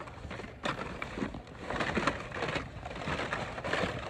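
Carded Hot Wheels blister packs rustling and clattering against each other as they are shuffled through by hand in a cardboard bin. The handling is irregular and gets busier about halfway through.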